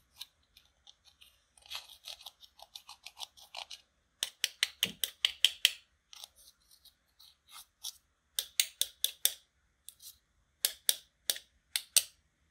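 A metal tool scraping and crumbling pressed bronze eyeshadow out of a small plastic compact pan. It comes in bursts of rapid, crisp, scratchy clicks, loudest about halfway through.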